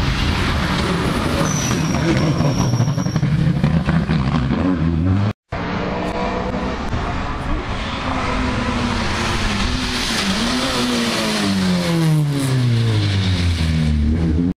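Rally cars' engines at full throttle, revving up through the gears as they approach, with the pitch sweeping down steeply as a car goes past. The sound breaks off for an instant about five seconds in, where two passes are cut together.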